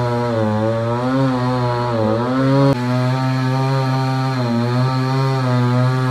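Chainsaw running as it cuts through a fallen coconut tree, the engine's pitch wavering up and down under load, with an abrupt break a little under three seconds in.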